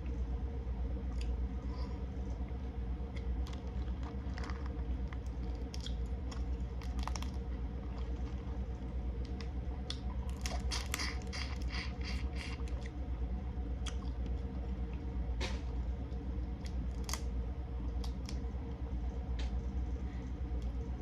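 Eating a seafood boil: shellfish shells cracked and pulled apart, with wet squishing and crunching clicks that come thickest about ten to thirteen seconds in. A steady low hum runs under it.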